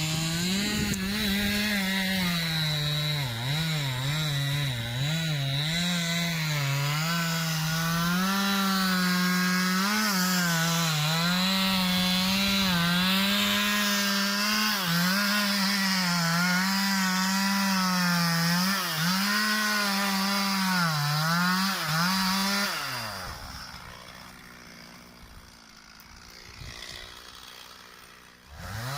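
Chainsaw running at full throttle through a cut, its pitch dipping and recovering as the chain bogs in the wood. About three-quarters of the way through the throttle is released and the engine note drops away, then it revs up sharply again near the end.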